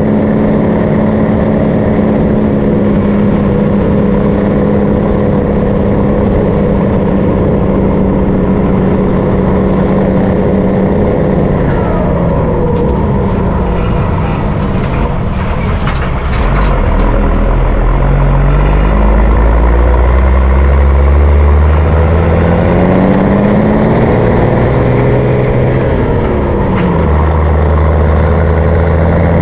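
MAN LE280B 4x4 truck's diesel engine running under way. The revs fall away over a few seconds around the middle, with a few sharp clicks, then climb steadily through the gears, dipping briefly near the end before rising again.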